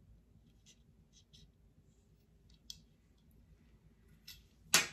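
Faint scattered clicks and rustles of hands turning and handling a fly rod section, then a short, much louder sound near the end.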